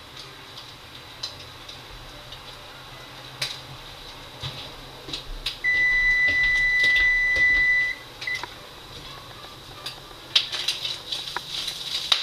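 An electronic kitchen timer beeping: one steady high tone of about two seconds, then a short blip. Underneath, food fries in a pan with a faint crackle that grows busier near the end.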